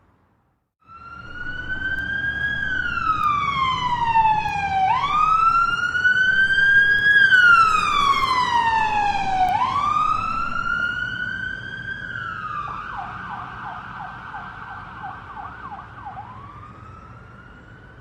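Ambulance siren starting about a second in, wailing in slow rising and falling sweeps. About two-thirds of the way through it switches to a fast yelp, then goes back to the wail. It grows louder toward the middle and fades toward the end, over a low vehicle rumble.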